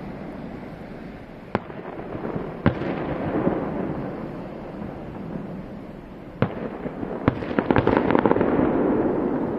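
Aerial fireworks bursting: a few single sharp bangs spread through the first seven seconds, then a quick crackling run of many reports near the end, all over a continuous low din of bursts.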